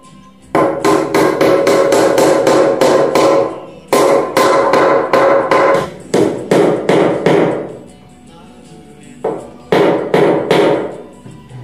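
Hammer blows on wood, driving the glued legs and spindles of a Windsor-style chair home into the seat. The strikes come quickly, about four a second, in two long runs and then a shorter run after a pause near the end.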